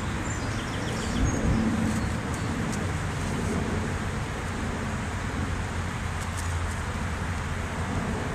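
Honeybees buzzing around an open hive, with a steady low rumble underneath.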